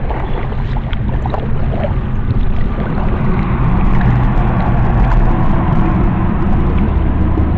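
A canoe moving along a shallow river: a steady rush of water noise with a heavy low rumble.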